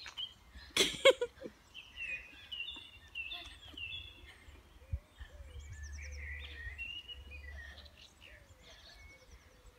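Small songbirds chirping and whistling in short, repeated calls. A single short sharp noise about a second in is the loudest thing, and a low rumble comes in the middle.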